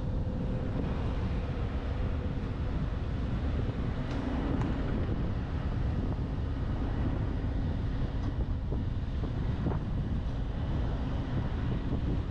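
Wind buffeting the microphone of a roof-mounted action camera on a moving truck, over steady road and engine rumble, with a few faint knocks.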